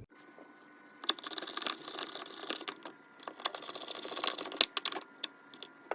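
Rapid small clicks and rattles of hard plastic and small metal parts being handled, starting about a second in and stopping about a second before the end.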